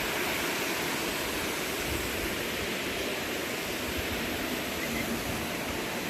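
Mountain stream rushing over rocks, a steady even rush of water with an uneven low rumble beneath.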